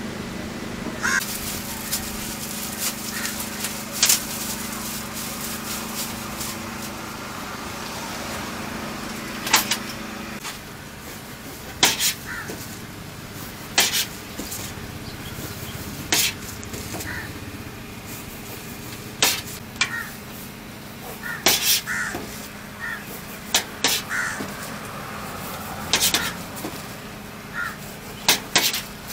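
Kitchen knife knocking on a stainless-steel counter as soft bread buns are sliced, a sharp knock every couple of seconds, with crows cawing in short calls now and then. A steady hum runs under the first ten seconds or so, then stops.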